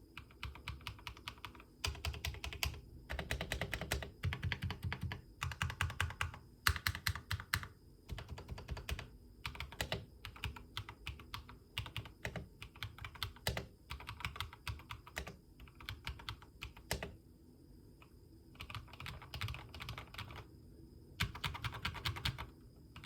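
Typing on a mechanical keyboard just fitted with KiiBoom Topaz switches: runs of rapid keystrokes in bursts of a second or two, with short pauses between them.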